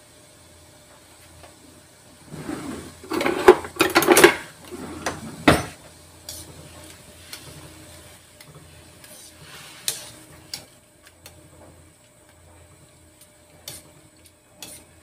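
Metal mesh strainer stirring vegetables in a stainless steel wok of blanching water, clattering and scraping against the wok. A burst of clatter comes a few seconds in, then a single sharp knock, then occasional light clinks.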